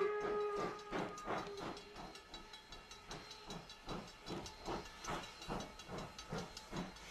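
A steam locomotive working: its whistle cuts off right at the start, a faint trace of the tone hanging on for a second or so, then steady rhythmic exhaust chuffs, about three a second, with a hiss of steam.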